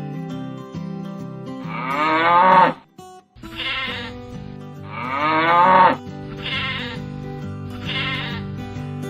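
Background music with a farm animal bleating about five times over it; the first and third bleats are the longest and loudest.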